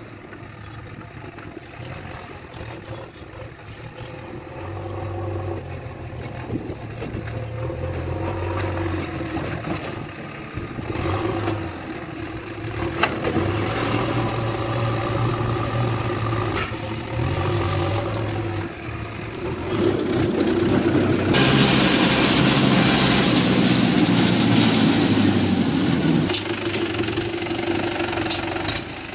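Diesel engines of a JCB 3DX backhoe loader and a Mahindra 415 DI tractor running, the engine note rising and falling as the machine is worked. About two-thirds of the way through, a loud hiss starts over a steady engine and runs on.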